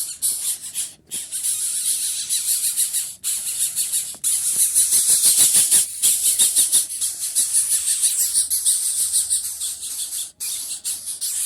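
Coucal chick giving a rapid, pulsing, high-pitched hissing begging call at feeding, broken by a few short pauses.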